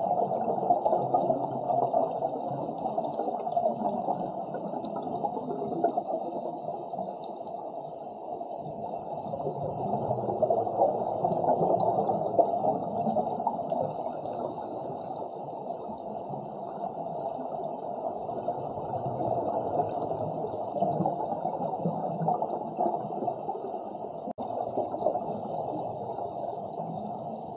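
Muffled underwater water noise picked up by a submerged camera: a steady low rushing and gurgling that swells and eases slowly.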